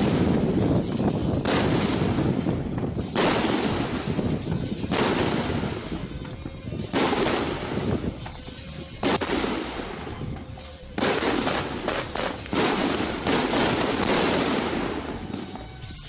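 A 25-shot Thunderking 1.3G salute cake firing, about eight loud reports roughly one every two seconds, each trailing off in a long echo.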